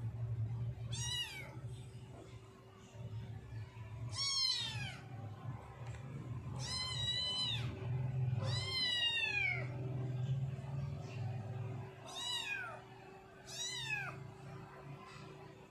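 Orange kitten meowing six times, a few seconds apart: high-pitched meows that each fall in pitch.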